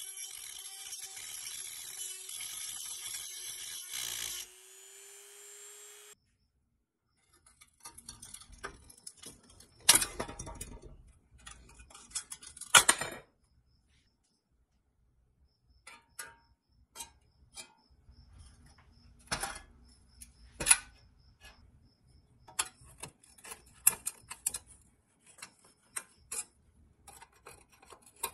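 A rotary tool grinds against rusty steel and then winds down and stops. After that, a flathead screwdriver scrapes and picks at the rusty pressed-steel parts of a toy truck, with scattered sharp clicks and scratches as it pries at the cab's grille.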